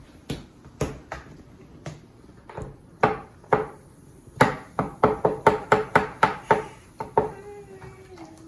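A series of sharp knocks on a hard container that rings briefly with each strike. They come a few at a time at first, then in a quick run of about four a second in the middle.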